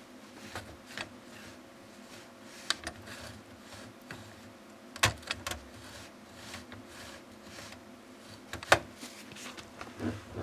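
Scattered sharp clicks and taps of plastic parts inside an Epson inkjet printer as it is handled, about ten in all, the loudest a little before the end, over a faint steady hum.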